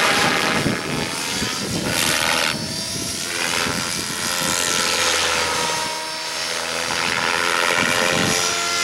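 Align T-Rex 600E Pro DFC electric RC helicopter in 3D flight, its main rotor turning at about 2600 rpm head speed with a whooshing blade noise and a motor whine. The pitch and loudness rise and fall as the blades load up through the manoeuvres.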